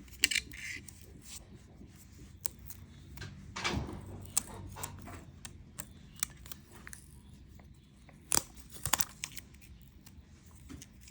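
Scattered small clicks, taps and brief crinkling from hands handling an opened smartphone while pressing its new battery down onto the adhesive, over a steady low hum.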